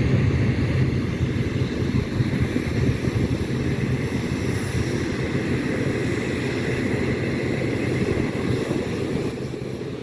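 Jet engine noise from a Boeing 737-300 cargo jet with CFM56 turbofans: a steady, loud low rumble with a faint whine above it, easing slightly near the end.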